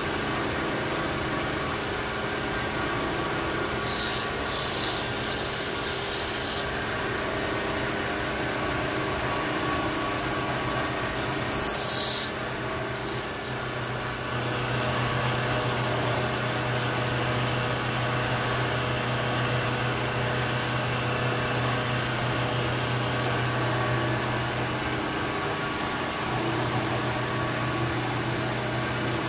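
Bridgeport vertical milling machine running, its spindle motor fed from a variable frequency drive, with the end mill cutting a metal spacer block: a steady hum with a fixed whine. A short, loud high-pitched hiss comes about twelve seconds in, a fainter one about four seconds in, and the low hum grows louder through the middle stretch.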